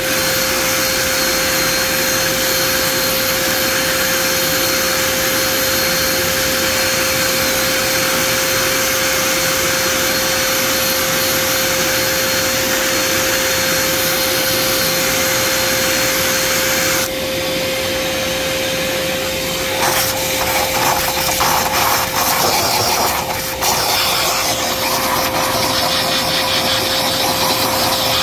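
A motor-driven machine running steadily, a rush of air with a constant whine. About 17 seconds in the sound shifts, and from about 20 seconds irregular scraping and rubbing come in over it.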